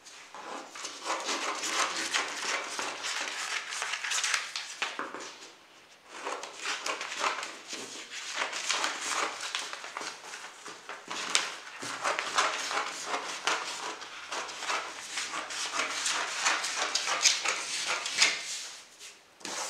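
Sheets of printer paper rustling and sliding against each other and the wooden tabletop as they are handled and laid out, a continuous crackly rustle with a short lull about five seconds in.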